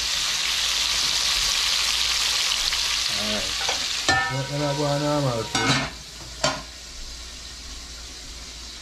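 Lionfish pieces sizzling loudly as they fry in a wide metal pan. About four seconds in a metal lid clanks onto the pan, and after a couple more clinks the sizzling carries on much quieter.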